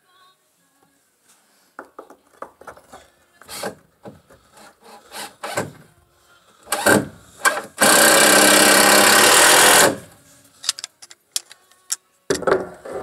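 Hand tools worked on a PVC pipe fitting: scattered clicks, knocks and short scrapes, with one loud, steady noise lasting about two seconds around eight seconds in and a cluster of knocks near the end.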